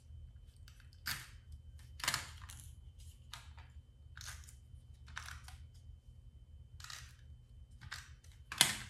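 Short scratchy strokes of a handheld tape dispenser laying tape onto paper and acetate layers, about one a second, with the sharpest about two seconds in and near the end.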